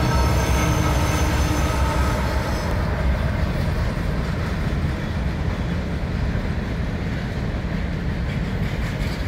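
Arkansas & Missouri Railroad passenger train rolling past unseen behind trees: a steady low rumble of cars on the rails, easing off slightly. Thin high tones sound over it for the first two to three seconds, then fade.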